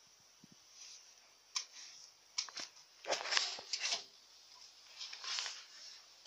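Rustling, scraping and light clicks of a handheld phone being moved and brushed against close to its microphone, loudest in a cluster a few seconds in.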